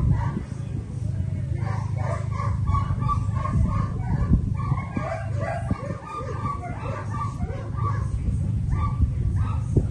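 Dogs barking and whining in a quick run of short, high calls, over a steady low rumble.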